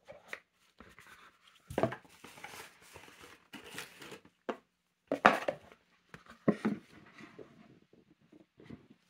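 Handling noise: paper and cardboard rustling and bumping as the instruction manual and box are moved about, with a few sharper knocks about two, five and six and a half seconds in.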